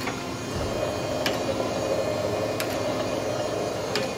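Kent automatic surface grinder running under power: a steady machine hum that swells slightly about half a second in, with a light tick about every second and a half.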